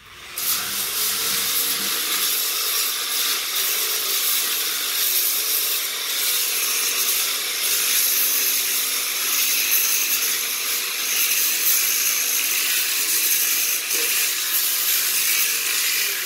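Handheld power tool working along a wooden beam, grinding away the wood surface with a steady hiss. It starts about half a second in and runs at an even level.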